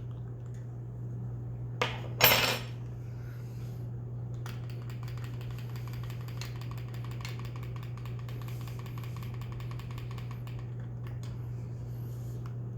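A sharp knock and a short, loud burst of noise about two seconds in, then a long run of small clicks and light clatter of objects handled on a tabletop, over a steady low hum.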